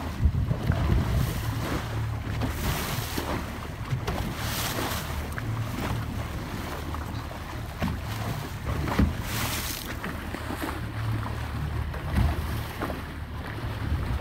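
Wind rushing on the microphone and sea water washing past a boat's hull, over a steady low rumble from the boat's motor running at trolling speed, with a few brief louder rushes of noise.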